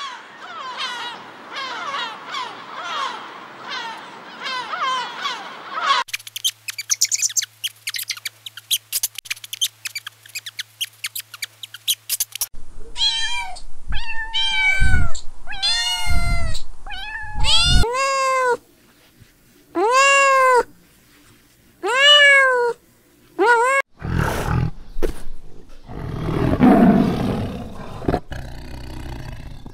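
A flock of gulls calling over one another, then a run of rapid dry clicks. Then a cat meows about ten times in long cries that rise and fall, and near the end comes a tiger's low, rough growling.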